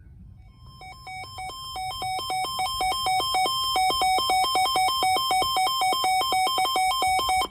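Weather radio alert alarm for an incoming warning: an electronic beeping that flips rapidly between a higher and a lower pitch, growing louder over the first few seconds, then cutting off suddenly.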